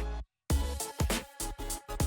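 Electronic background music with a steady beat, which drops out completely for a moment about a quarter second in and then comes back in.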